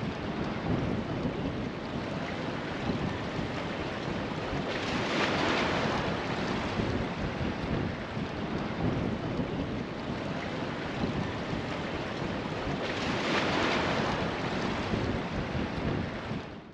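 Ocean surf: a steady wash of waves breaking, with wind, swelling louder about five seconds in and again about thirteen seconds in, then fading out at the very end.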